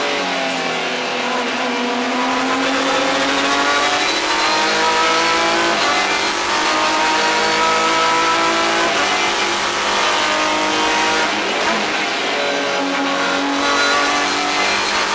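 Renault Mégane Trophy race car's 3.5-litre V6 heard from inside the cockpit, under racing acceleration. Its note rises through the revs, drops suddenly at gear changes about six seconds and twelve seconds in, then climbs again.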